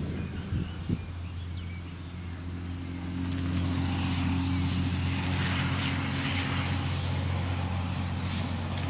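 Engine running steadily with a low hum, getting louder about three seconds in.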